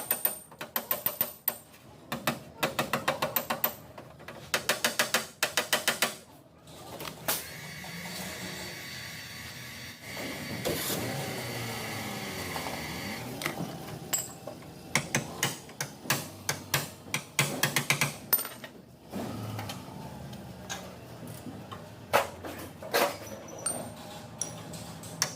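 Paintless dent repair tools working on a car body panel: quick runs of light, sharp taps, then a steady noise for several seconds, then scattered single taps.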